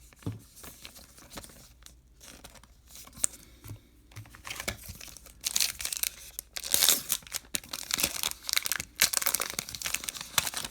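A baseball card pack's foil wrapper being torn open and crinkled: a few soft handling clicks at first, then about five seconds of dense crackling.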